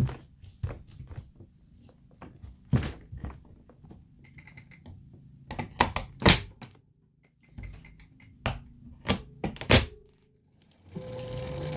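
Irregular sharp clicks and knocks in an uneven, morse-code-like pattern from an Elite Drivo direct-drive smart bike trainer. About eleven seconds in, a steady hum starts and rises slightly in pitch.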